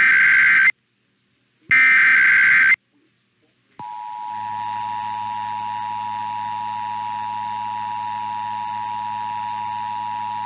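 Emergency Alert System test opening. First come two short bursts of the SAME header, the screechy two-tone digital data sent before an alert. About a second later the steady two-tone EAS attention signal begins and holds.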